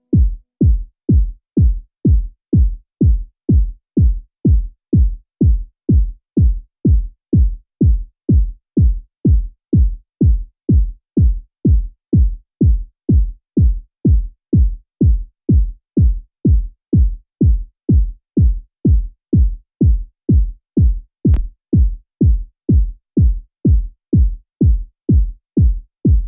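Electronic background music: a steady, deep drum-machine kick beat at about two thumps a second. It cuts off abruptly at the end.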